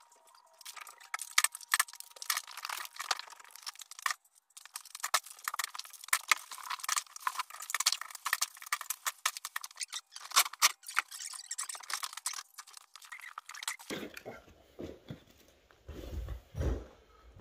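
Rapid, irregular clatter of cracking and splintering wood and scraping as rotten floorboards are pried up with a pry bar. About fourteen seconds in the clatter stops and a few heavy, close thumps follow.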